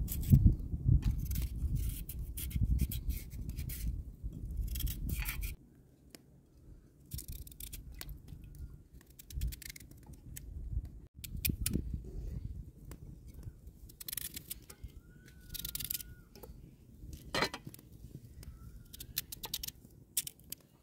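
Kitchen knife scraping the skin off a raw carrot in quick, repeated short strokes. A low rumble sits under the first five seconds and then cuts off.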